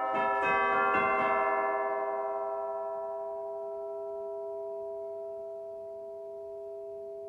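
Church bell struck several times in quick succession in the first second or so, then left to ring out, its hum slowly fading.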